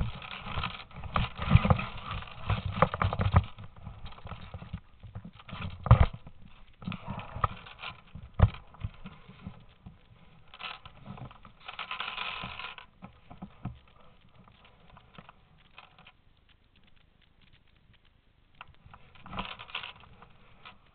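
Irregular knocks and clicks, bunched thickly in the first few seconds, with two sharper single knocks about six and eight and a half seconds in and a short burst near the end.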